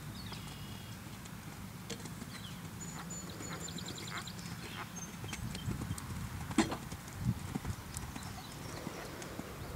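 Horse's hooves thudding on a sand arena under a rider, with a run of louder thuds about two-thirds of the way through.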